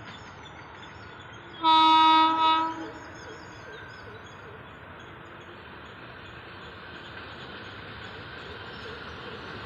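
Horn of an approaching WAP-4 electric locomotive sounding one blast of about a second, around two seconds in. Under it the steady rumble of the approaching train grows slowly louder.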